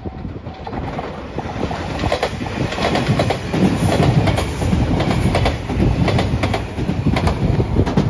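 JR Shikoku 8600 series electric express train approaching and passing close by, getting louder over the first few seconds, its wheels clacking over the rail joints in quick repeated clacks.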